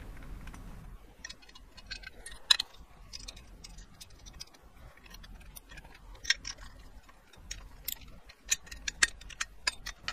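Light, irregular metallic clicks and taps from handling the dead pedal's bracket hardware and hand tools, coming more often near the end.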